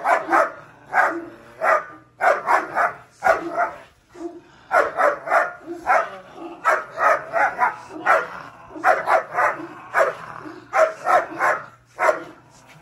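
Large dog barking at a stranger in guard-dog training, straining on its leash, in quick clusters of short, sharp barks with a brief lull about three and a half seconds in.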